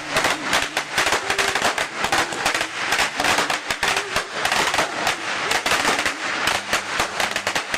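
A string of Chinese firecrackers going off in a dense, continuous crackle of rapid pops.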